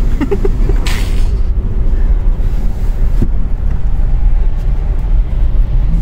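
Hyundai Venue's steady low rumble heard from inside the cabin, with a short hiss about a second in.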